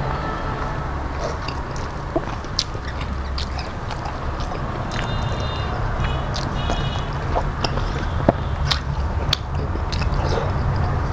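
Close-miked chewing and wet mouth sounds of a person eating rice, dal and vegetable dishes by hand, with scattered small clicks and squelches as fingers mix food on a steel plate. A steady low hum runs underneath.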